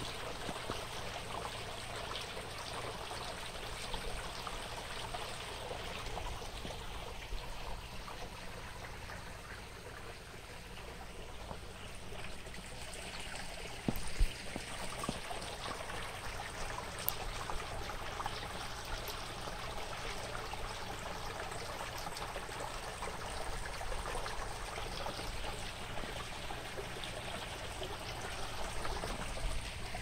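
Mountain valley stream flowing steadily, with one sharp knock about halfway through.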